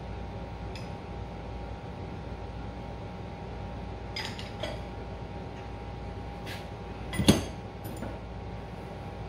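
Metal parts being handled while a motor pulley is fitted and checked for belt alignment with a straight edge: a few light clicks, then one sharp metallic clink about seven seconds in, over a steady background hum.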